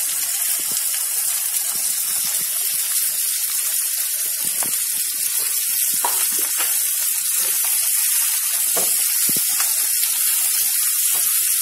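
Onion wedges frying in hot oil in a kadai, a steady sizzle, with a few light knocks as they are stirred.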